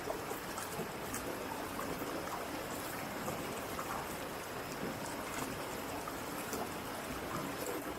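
Waterfall: water falling and splashing in a steady rush, with small splashes flecking through it.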